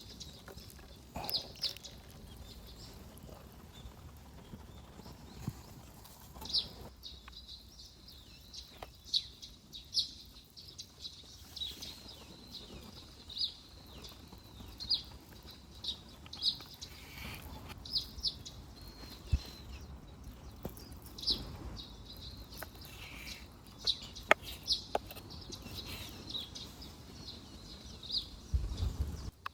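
A bird chirping over and over, short high calls coming about once a second, over a low rumble of wind. A few sharp clicks come through, the loudest about two-thirds of the way in.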